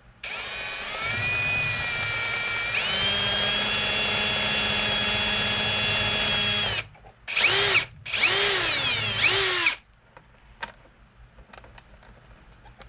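Power drill with a 5/32-inch bit drilling out an airbox cover rivet: a steady whine that steps up in speed about three seconds in and stops near seven seconds, then three short bursts whose pitch rises and falls, ending about ten seconds in.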